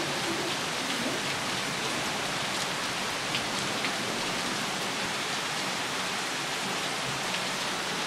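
Steady rain from a thunderstorm falling on the roof and trees, an even hiss with a few individual drops heard now and then.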